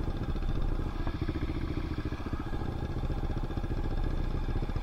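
Dirt bike engine running steadily, its exhaust pulses heard close through a rider-mounted action camera.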